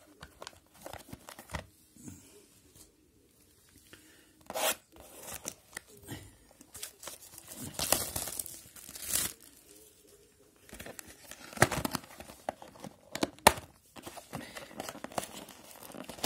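Plastic wrapping being torn and peeled off a cardboard trading-card box by hand: irregular crinkling with several sharp rips, the longest tearing about halfway through and two short sharp ones later.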